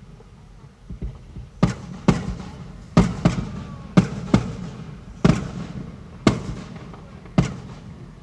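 Fireworks display: about nine sharp bangs of bursting fireworks over some six seconds, irregularly spaced, each trailing off in a short echo.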